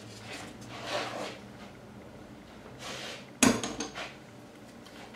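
Handling noise at a wooden work table: soft rustles, then one sharp knock about three and a half seconds in, followed by a couple of lighter taps, as a hand moves paper and picks up a marker.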